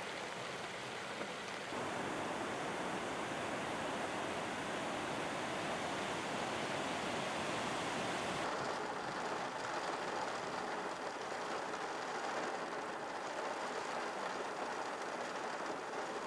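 Steady rushing of a muddy floodwater torrent pouring down a street. It grows louder about two seconds in and turns duller, losing its hiss, about halfway through.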